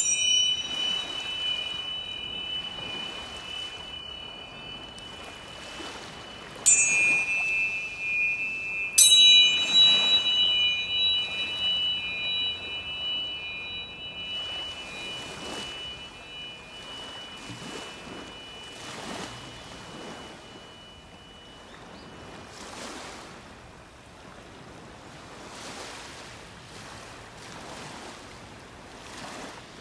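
Healing tuning forks struck three times: at the start, about seven seconds in and about nine seconds in, the last the loudest. Each rings a few clear high tones at once that fade over several seconds, over a steady wash of ocean surf that swells every few seconds.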